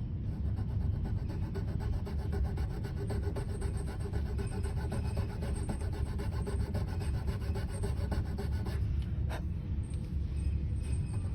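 Steady rubbing and rasping of a cello nut being shaped down by hand with an abrasive tool, over a steady low hum, with one brief sharp click about nine seconds in.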